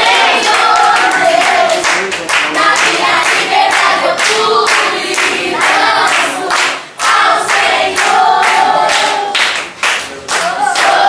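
A group of voices singing together, with many sharp hand claps.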